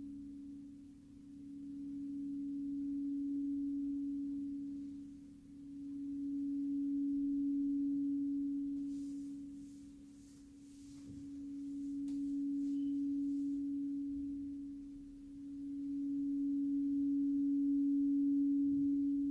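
Crystal singing bowl sounding one sustained pure tone that swells and fades about every five seconds.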